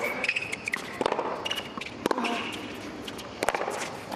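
Tennis rally on a hard court: a racket hits the ball about once a second, a string of sharp knocks mixed with ball bounces.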